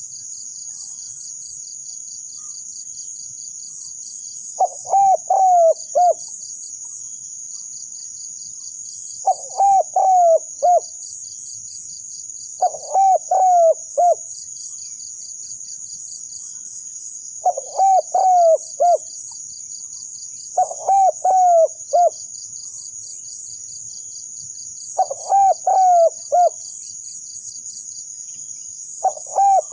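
Spotted dove cooing: a short phrase of four or five coos, repeated about every four seconds, over a steady high trilling of insects.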